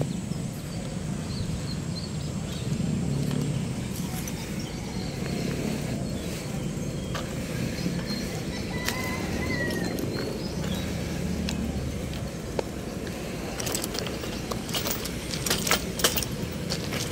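Steady rumble of passing road traffic, with a few sharp clicks and taps in the last few seconds.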